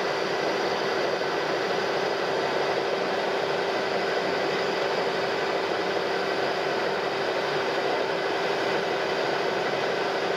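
Metal lathe taking a steady turning cut, an insert tool feeding along a spinning metal shaft to turn it down to a bearing diameter. The machine's steady hum and the cut's hiss run evenly without a break.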